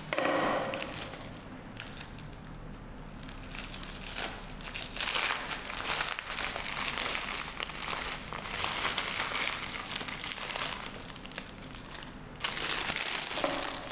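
Small packaging crinkling as it is handled and opened by hand, with louder crinkling from about five seconds in and again near the end.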